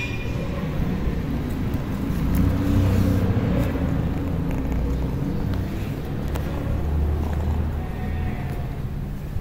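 Ginger kitten purring close up while being stroked: a low, pulsing rumble that swells about two seconds in and fades near the end.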